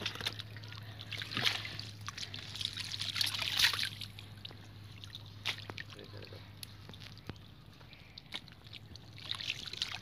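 Shallow muddy water splashing and sloshing as a person wades and reaches into it. The splashing is heaviest in the first four seconds, then thins to scattered small splashes, over a faint steady low hum.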